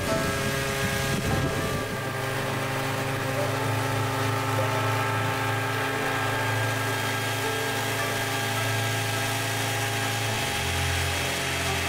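Small engine of a two-person portable tea harvester running steadily as it cuts along a tea row, its pitch dropping a little near the end.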